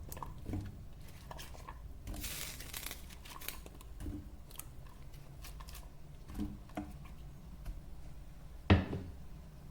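Kitchen handling noises at a cooking pot: scattered light clicks and rustling, a brief hiss about two seconds in, and a single sharp knock near the end.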